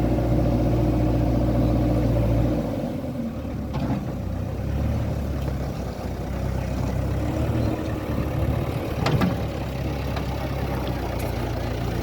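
Diesel engine of a JCB 3DX backhoe loader running steadily, easing off and dropping in level about two and a half seconds in, then running on. One sharp knock about nine seconds in.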